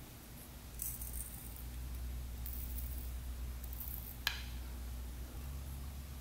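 Pure indium metal being bent back and forth between the fingers, giving off faint, brief crackles several times: the metal's 'cry', its crystal structure sliding past itself. A sharper click comes a little after four seconds in.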